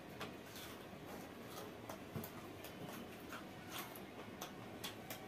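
Faint eating sounds: soft, irregular clicks of chewing and lip-smacking, a few a second, as fingers pick apart a grilled whole fish.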